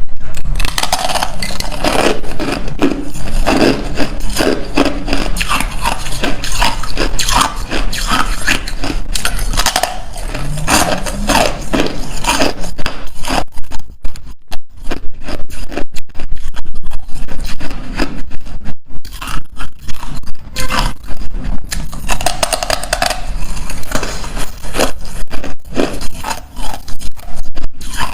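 Ice being bitten and chewed close to the microphone: a loud, dense run of crunching and cracking, with a couple of short breaks about halfway through.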